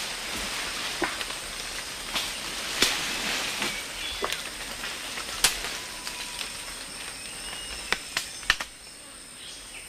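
Rustling rainforest foliage with a scattering of sharp snaps and knocks, as bits of twig, fruit and leaf drop through the canopy from feeding orangutans. A steady high insect drone runs underneath.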